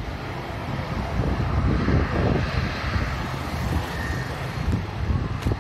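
Jet airliner engine noise, a steady rumble, with strong wind buffeting the microphone.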